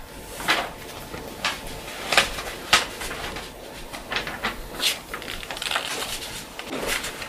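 Loose sheets of paper rustling and crackling as pages are handled and turned, in an irregular run of short crisp sounds, the sharpest ones a little over two seconds in and again about half a second later.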